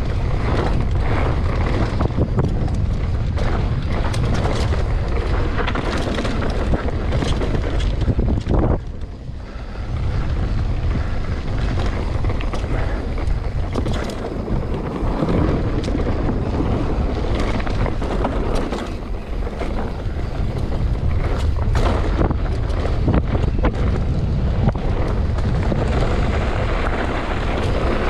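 Wind buffeting an action camera's microphone over the rumble and rattle of a mountain bike ridden fast downhill on a rough dirt trail, with frequent knocks from bumps and rocks. There is a short lull about nine seconds in.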